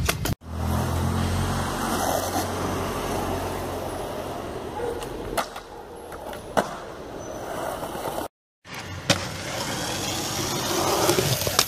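Skateboard wheels rolling on concrete, with several sharp clacks of the board striking ledges and the ground. A low hum sits under the first two seconds, and the sound cuts out abruptly twice.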